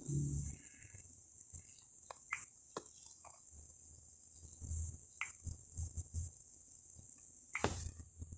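Music stops about half a second in, leaving a faint, steady high hiss with a few light clicks and taps from fingers working a smartphone touchscreen.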